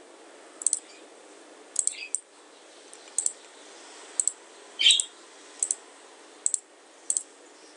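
Computer mouse clicking: about eight short, sharp clicks, roughly a second apart, over a faint steady hiss.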